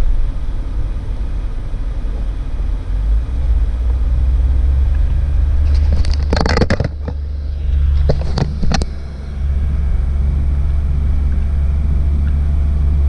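Campervan engine and tyre noise heard from inside the cab as it drives slowly along a lane, a steady low rumble. A few sharp knocks and clatters break in about six seconds in and again near nine seconds.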